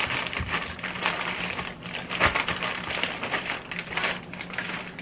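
Plastic zip-top bag crinkling and rustling as hands dig sausage out of it, with two soft knocks, the second about two seconds in.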